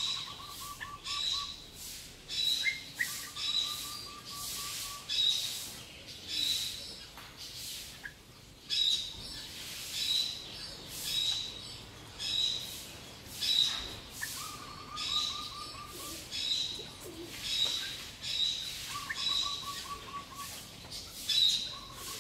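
Birds chirping: a short high chirp repeated over and over, a little faster than once a second, with a short, fast trill of lower notes breaking in several times.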